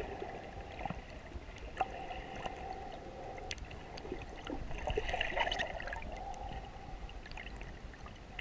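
Muffled underwater sound heard through a submerged camera in shallow sea water: a steady wash of noise that swells for a moment partway through, peppered with many small clicks and crackles.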